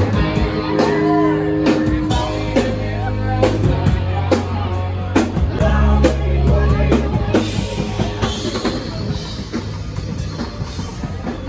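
Rock-style music with a drum kit and a bass line, a little softer in the last few seconds.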